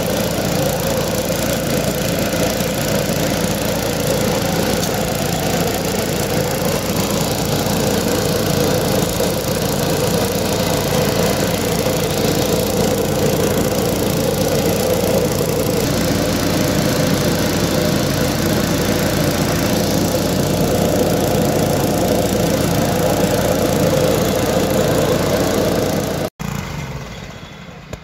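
Small portable petrol engine of a rail-welding unit running steadily at a constant speed, while the rail joint is being heated at the mould. It cuts off suddenly near the end.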